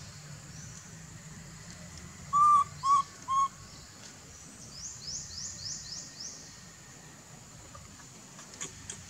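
Animal calls: three short, clear whistled notes, the loudest sounds here, then a quick run of six high falling chirps, over a faint steady high-pitched background.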